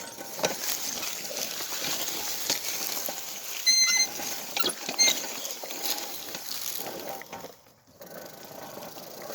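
Pedal car rolling on its plastic wheels over gravel: a steady crunching with many small clicks, two short high squeaks about four and five seconds in, and a brief stop about seven and a half seconds in before it rolls on more quietly.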